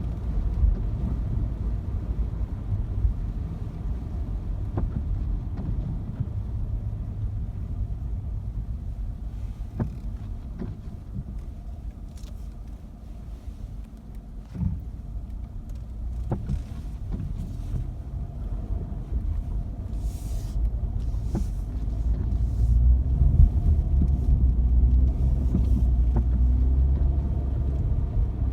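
A car driving along, heard as a steady low rumble of engine and road noise with a few faint clicks; the rumble eases off around the middle and grows louder over the last several seconds.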